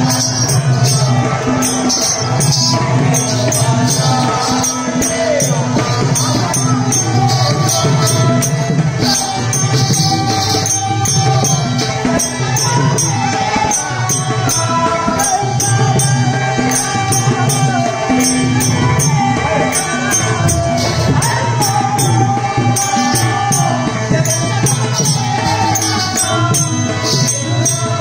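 Live folk-theatre music: a voice singing a wavering melody over a steady rhythm of metallic jingling percussion and a low drum.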